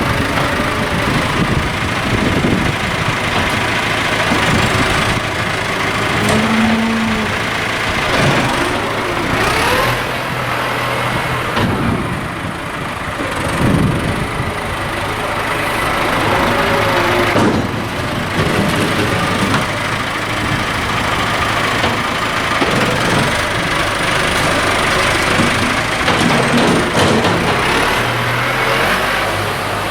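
Tractor engine running, its revs rising and falling as it works.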